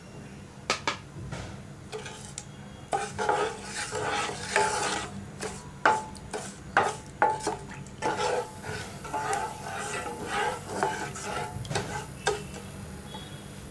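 Wooden spatula stirring milk and butter in a non-stick saucepan: scraping and swishing, with sharp taps of the spatula against the pan. The stirring is busiest from about three seconds in until about twelve.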